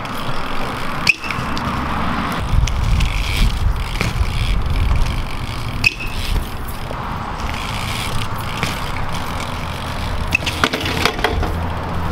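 BMX bike tyres rolling and scraping on a concrete ledge, with sharp knocks as the bike hops and lands, and a cluster of clatters near the end as the bike drops. A steady low rumble runs underneath from a couple of seconds in.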